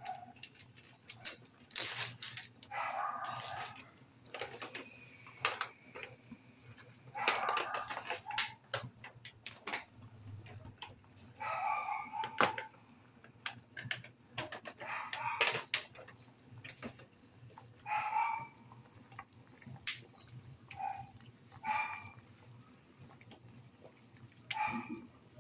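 Pork soup with string beans bubbling at a rolling boil in a frying pan, with many small pops. Animal calls sound every few seconds.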